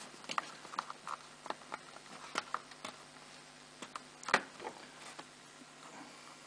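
Small cardboard knife box being handled and opened on a wooden tabletop: scattered light clicks and scrapes, with one sharper knock about four seconds in.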